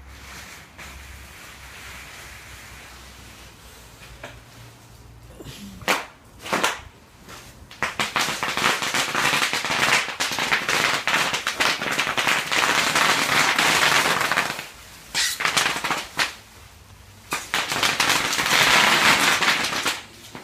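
Bubble wrap popping under the wheels of a heavy, roughly 300-pound electric wheelchair, sounding like firecrackers. A couple of single sharp pops come about six seconds in, then two long runs of rapid-fire popping with a pause of a few seconds between them.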